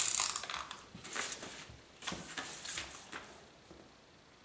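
Sulfite paper envelope being handled and pressed by hand: a short rub right at the start, then soft paper rustles about once a second, each fainter than the last.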